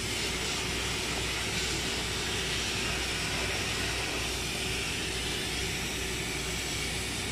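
Fire engine running with a steady low drone under a constant hiss.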